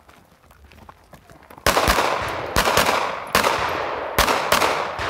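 Gunshots from a competition shooter's firearm firing at targets. About six shots begin a second and a half in, several fired in quick pairs, each with a long echoing tail.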